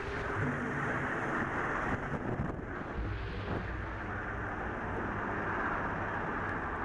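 A helicopter's rotor and engine noise as it passes overhead and moves away, with wind buffeting the microphone.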